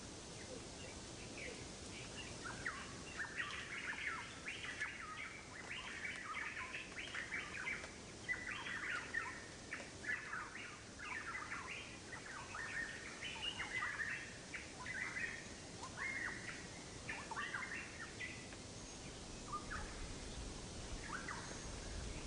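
Birds chirping in a busy chorus of short, quick chirps over a faint steady hiss, thinning out near the end.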